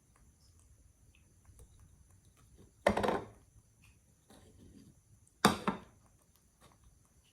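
Two sharp knocks, about two and a half seconds apart, each dying away within half a second, with a fainter scuffing sound between them.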